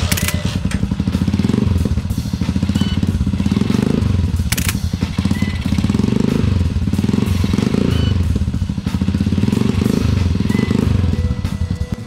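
Honda TMX single-cylinder four-stroke motorcycle engine running through a chrome bullet-style aftermarket exhaust, idling with several brief revs of the throttle.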